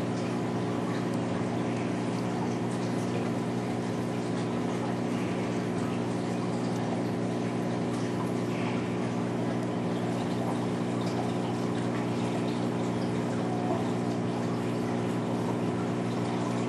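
Saltwater aquarium's water pump running with a steady electrical hum, over a constant rush and trickle of circulating water.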